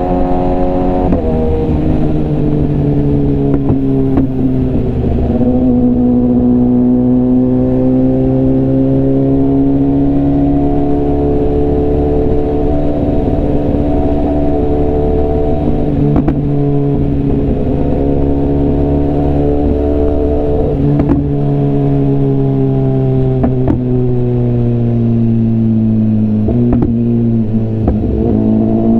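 BMW S1000RR's inline-four engine and exhaust running under way at a fairly steady pitch. The pitch eases down and swells back up slowly as the throttle changes.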